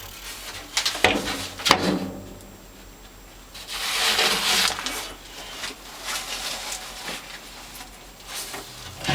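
Two sharp knocks about a second apart, then a hissing, scraping rustle lasting about a second, with a few lighter taps after it.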